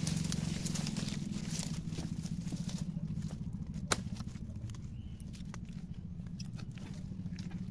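Digging in wet mangrove mud: scattered faint crackles and clicks, with one sharp click about four seconds in, over a steady low hum.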